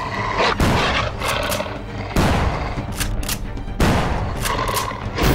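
Gunfire from a film battle scene: repeated shots at irregular intervals, some in quick succession, over a tense film score.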